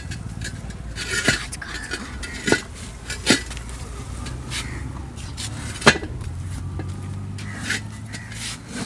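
Rubber inner tube being pulled out of a tempo tyre on its steel rim: rubbing and scuffing of rubber on rubber and metal, with a few sharp clinks, the loudest about six seconds in.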